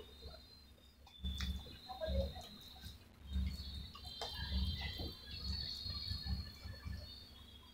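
Fingers squishing and mixing curd rice on a steel plate, in irregular wet, sticky squelches, mixed with close-up chewing.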